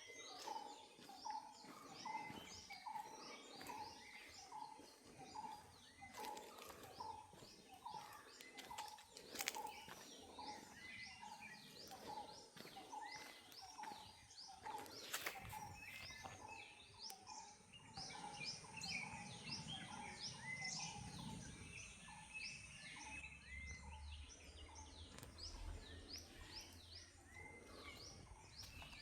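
Faint chorus of several birds chirping: one bird repeats a short low call steadily through the first half, while many quick high chirps run throughout and grow busier in the second half. A couple of short sharp clicks come in between.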